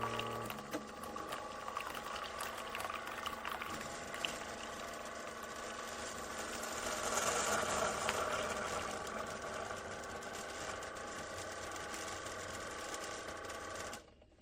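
Keurig K-Express single-serve coffee maker brewing, its small water pump running steadily with a mechanical hum. The sound stops abruptly near the end.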